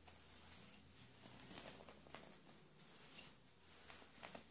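Faint, scattered patter of chopped hazelnuts sprinkled by hand onto a baked cake, a few soft ticks here and there over a steady high-pitched hiss.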